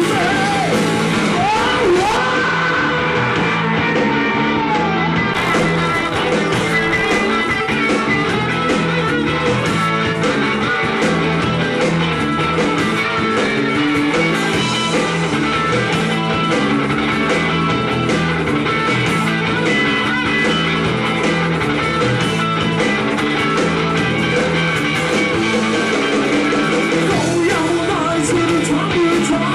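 A rock band playing live: electric guitars, bass guitar and drum kit, with a man singing lead.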